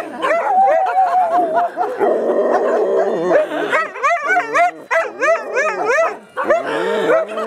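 A pack of dogs howling and yelping together, several wavering howls overlapping at different pitches. In the second half come quick rising-and-falling yelps, with a brief break about six seconds in.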